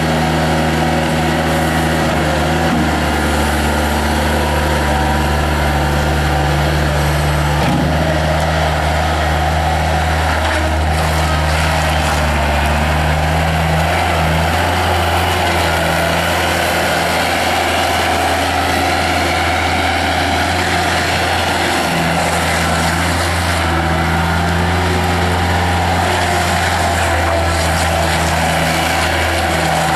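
1995 Bobcat 853 skid steer loader's diesel engine running steadily, its pitch shifting a little now and then as the machine is worked.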